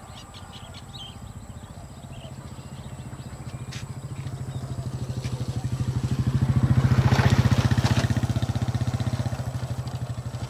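A motor vehicle's engine passing by: a steady pulsing drone that grows louder to a peak about seven seconds in, then fades away.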